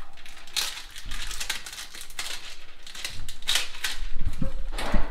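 Repeated rustling and crinkling of material being handled, with a few low knocks from about four seconds in.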